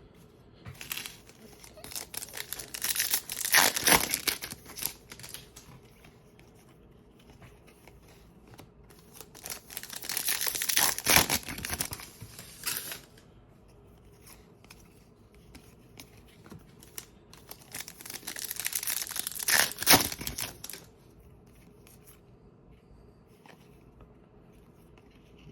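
Foil trading-card pack wrappers being torn open and crinkled: three bursts of tearing and crinkling with short pauses between them.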